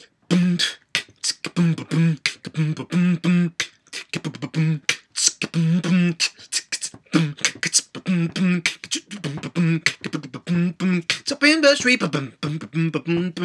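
A man beatboxing: a fast, steady run of sharp percussive mouth clicks and hisses woven with short hummed notes on one low pitch.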